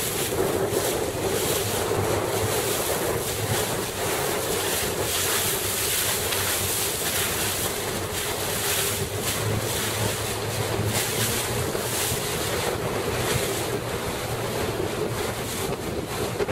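Wind buffeting the microphone over splashing, choppy water, with a steady low hum underneath.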